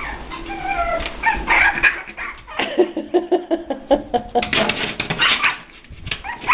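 FrenchBo puppies (French Bulldog x Boston Terrier) whimpering and squealing, with a quick run of repeated little squeaks in the middle.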